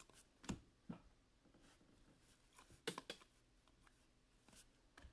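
Near silence with faint handling of a stack of trading cards: a few soft flicks and taps as cards are slid off the front and moved to the back, once about half a second in, again just before a second, and a small cluster around three seconds.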